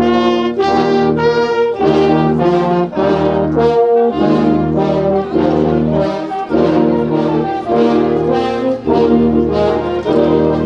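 Marching brass band playing a tune in the street, trumpets and horns over a sousaphone bass line.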